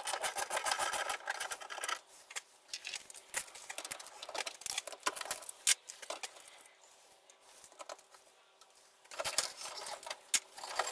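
Hand socket ratchet clicking in quick runs, with light metal clinks of tools, while bolts are undone under the car. The clicking is busiest near the start and again near the end, with a quieter stretch in the middle.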